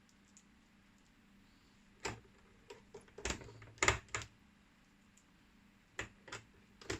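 Scattered sharp clicks and light knocks from handling parts while an instrument cluster is being put back together. They come in a cluster about two seconds in and a few more near the end.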